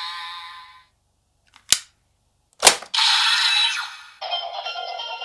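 A DX Wonder Ride Book toy's electronic audio fades out, then two sharp plastic clicks about a second apart as the book is snapped shut and slotted into the DX Seiken Swordriver toy belt. The belt answers with a burst of electronic sound effects and then a looping electronic tune.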